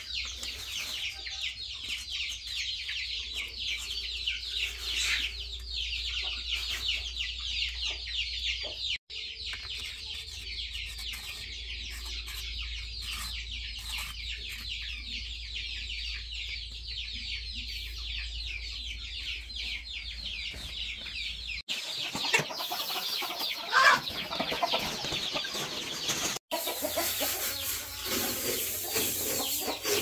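Poultry in the background: a dense chorus of high-pitched chick cheeping with clucking, over a low hum. About 22 seconds in the hum stops and the background changes, with a few louder clucks and knocks.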